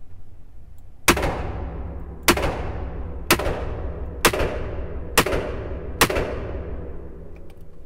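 MR-73 revolver fired six times in a steady string, about one shot a second, emptying the cylinder into a bullet trap. Each shot is followed by a short echo. This is a factory test-firing of a new revolver to check its function and set its sights.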